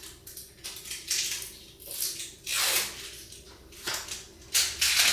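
Five or so short, hissing, rustling noises at uneven intervals, each under half a second.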